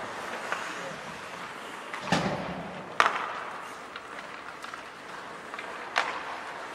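Ice hockey play in a rink: three sharp knocks of stick, puck and boards, about two, three and six seconds in, the one at three seconds loudest and the first with a deeper, echoing thud, over the rink's steady background noise.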